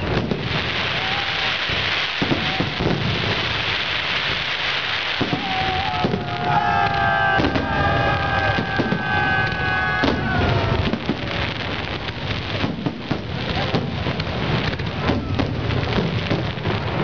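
Fireworks salute: a dense run of bangs from bursting shells over continuous crackling stars, heaviest in the first few seconds. Several held high tones sound together for a few seconds in the middle.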